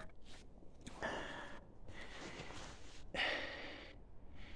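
A man breathing close to the microphone: two audible exhalations, about two seconds apart.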